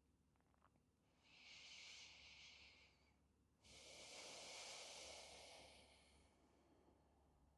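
Faint slow breathing: two soft breaths, the second longer and fuller.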